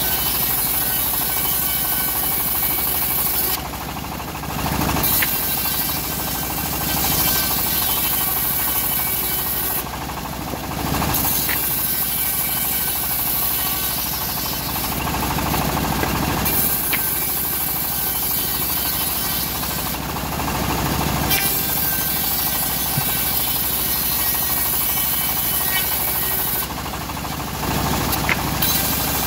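Homemade bandsaw mill running and ripping teak planks: a steady machine drone with the loud hiss of the blade cutting through the wood, which drops away in four short lulls as one cut ends and the next plank is fed.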